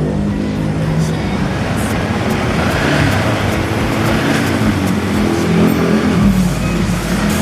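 Yamaha MX King 150's single-cylinder four-stroke engine running in sixth gear during a test of its newly fitted six-speed gearbox. The engine pitch rises and falls a few times.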